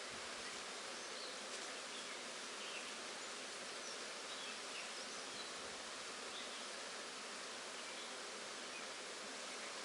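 A swarm of honeybees buzzing, a steady dense hum of many wings.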